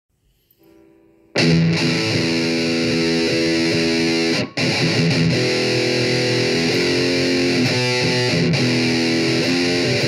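Electric guitar played through heavy distortion, a metal riff that comes in loud about a second in after a faint held note, with a brief break about halfway.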